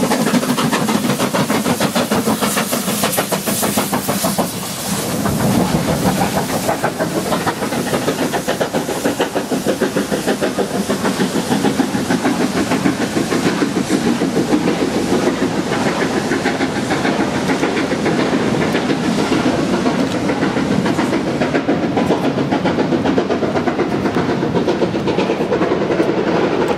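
Two steam locomotives, LMS Black Five 45305 and Britannia 70013 Oliver Cromwell, passing close under heavy steam with rapid exhaust beats, followed by their train of coaches rumbling and clicking over the rail joints.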